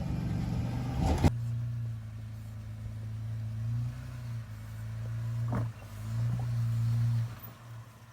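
An off-road vehicle's engine running at low revs as it crawls over rock, swelling and easing a few times and dropping away near the end. A louder rushing noise fills the first second and stops abruptly with a sharp knock.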